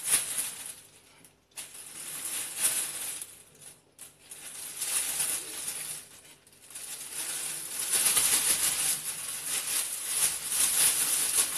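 Thin plastic bag crinkling and rustling as it is handled and shaken with raw chicken wings inside, in four stretches with short breaks between them.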